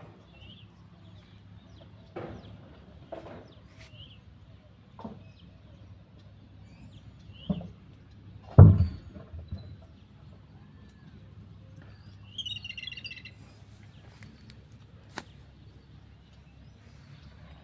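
Outdoor ambience of small birds chirping in short, repeated high calls, with a brief rapid chattering call about two-thirds of the way through. Scattered knocks, and one loud, dull thump a little before halfway, the loudest sound.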